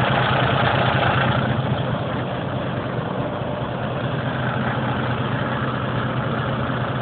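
Caterpillar landfill compactor's diesel engine idling steadily shortly after a cold start, having sat for nearly a month.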